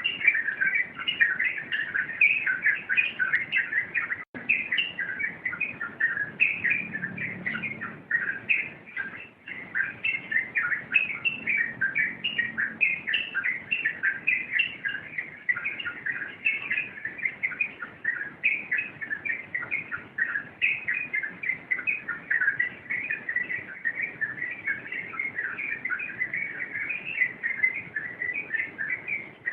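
Yellow-vented bulbul (trucukan) singing a rapid, unbroken run of chirps without pausing, the continuous 'rompelan' style of song.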